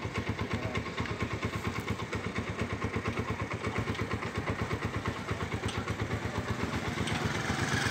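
Motorcycle engine idling steadily with an even beat while a mechanic works on it.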